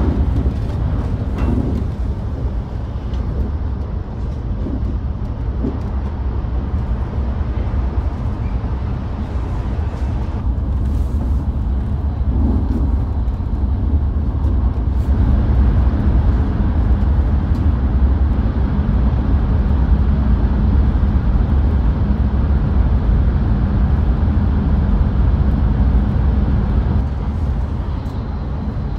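Steady low rumble of a Hayabusa shinkansen running, heard inside the Gran Class passenger cabin, with a few faint clicks. The rumble gets a little louder about halfway through.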